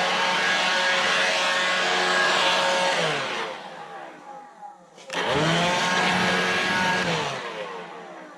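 A small electric motor-driven fan tool running at full speed with a steady whine and rush of air, being used to clean brake dust out of a truck's drum brake. It is released about three seconds in and spins down with a falling pitch, is triggered again a couple of seconds later, and spins down again near the end.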